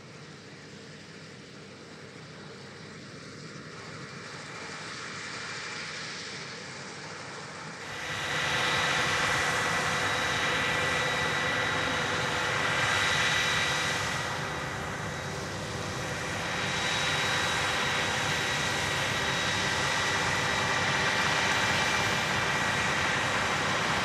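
Claas Lexion 760 TerraTrac combine harvester running under harvest load, a steady mechanical noise with a high whine from the machinery. It turns abruptly louder about a third of the way in and stays steady after that.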